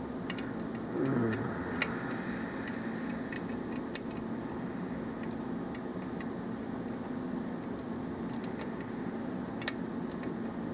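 Lock pick and tension wrench working the pins of a Russwin lock cylinder during single-pin picking: small metallic clicks and taps, with three sharper clicks about two, four and ten seconds in, over a steady low hum.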